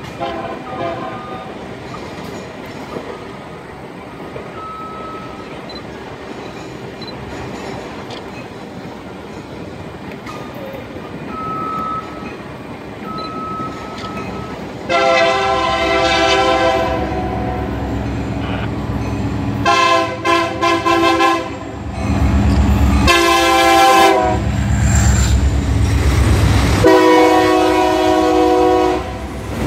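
Union Pacific diesel locomotive approaching and passing close by, sounding its air horn four times: long, long, short, long, the grade-crossing signal. Its deep engine rumble grows loud from about two-thirds of the way in as it draws level, with the loaded concrete-tie cars rolling behind.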